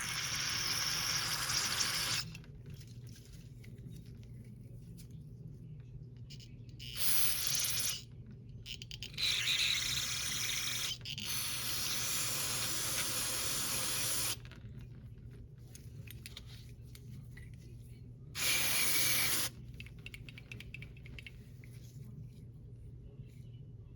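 Aerosol can of carburetor cleaner sprayed into a carburetor's passages in five hissing bursts of one to three seconds each, a longer run in the middle, to flush out dirt and varnish.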